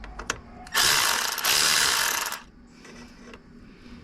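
Ratchet wrench spinning a header bolt loose, with a few sharp clicks and then two dense back-to-back runs of ratcheting lasting about a second and a half in all.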